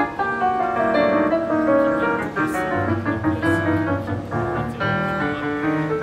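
Yamaha piano played quickly, a dense flow of notes, with low bass notes coming in about halfway through.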